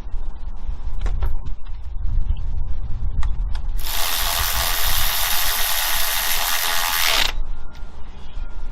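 Ratchet wrench clicking rapidly for about three and a half seconds in the middle, as a spark plug is run in, over a steady low rumble.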